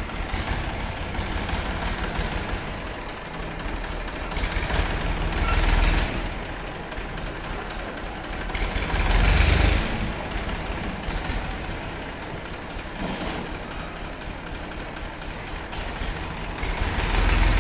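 Massey Ferguson farm tractor's diesel engine running as the tractor moves slowly with a trailer hitched. The engine swells louder three times, about five, nine and seventeen seconds in.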